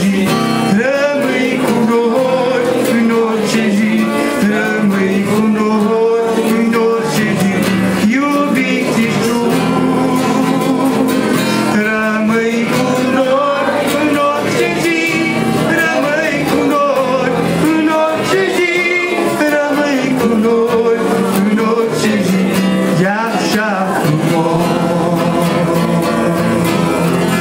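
A man singing a song, accompanying himself on acoustic guitar.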